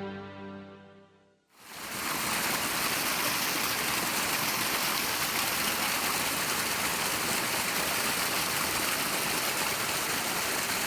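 Music fading out in the first second and a half, then a steady rush of flowing water.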